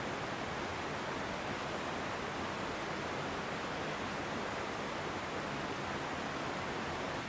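A steady, even rushing noise with no separate knocks or tones, holding a constant level throughout.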